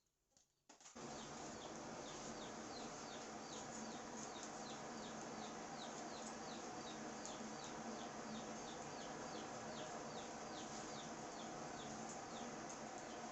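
A bird calling over a steady faint hiss, repeating a short, high, falling chirp about three times a second, starting about a second in after a few faint clicks.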